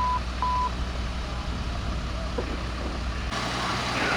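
Heavy truck engine idling low and steady, with a reversing alarm beeping at one pitch that stops about half a second in. The background changes abruptly about three seconds in.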